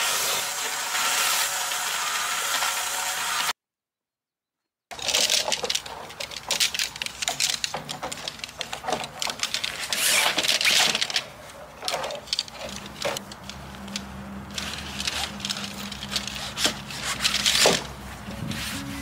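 Camping gear being handled and packed away: a run of irregular clicks, knocks and rustles. Before it, a steady hiss breaks off abruptly into about a second and a half of silence.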